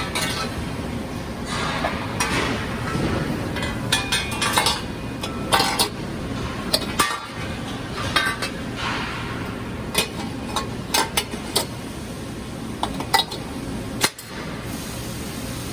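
Metal parts and fixtures on a car-body welding station clanking and clinking sharply at irregular intervals over a steady machinery noise.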